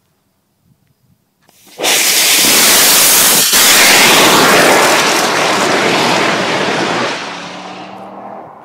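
Rocket motors strapped to a bicycle igniting suddenly and burning with a loud, steady rushing hiss for about five seconds, then fading out near the end.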